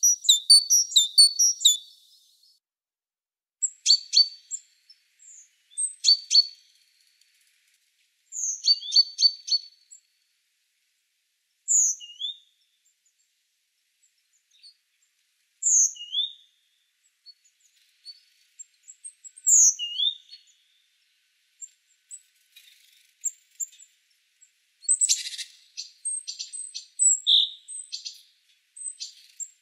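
Small bird chirping and singing: short phrases of quick chirps and falling whistled notes every few seconds, with a denser run of chirps at the start and again near the end.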